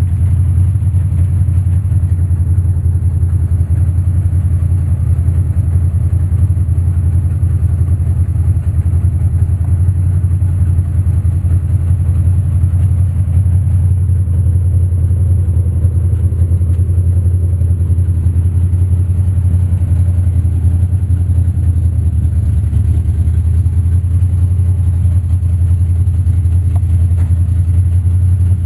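Ford 351 Cleveland V8 idling steadily: a deep, even engine drone with rapid firing pulses that stays unchanged throughout.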